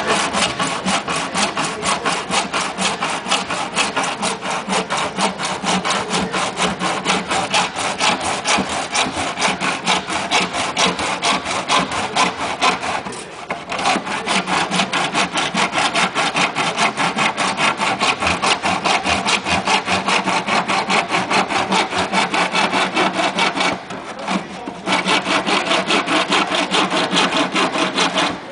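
Handsaw cutting through a large recycled-plastic drainage pipe: fast, even back-and-forth rasping strokes, broken by two short pauses, one about 13 seconds in and one about 24 seconds in.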